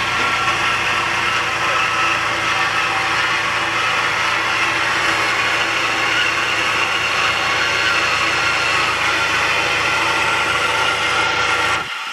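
1999 Honda Civic EX's D16Y8 SOHC VTEC engine running with a loud, steady mechanical noise from the engine bay whose cause is unknown. Near the end the low engine hum drops out suddenly and the sound gets quieter.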